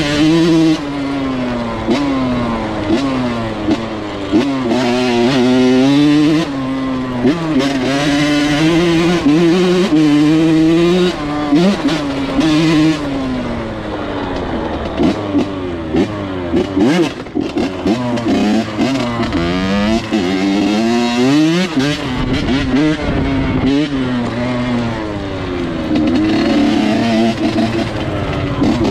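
Off-road vehicle engine being ridden, its pitch rising and falling over and over as the throttle opens and closes, with a second engine audible at times.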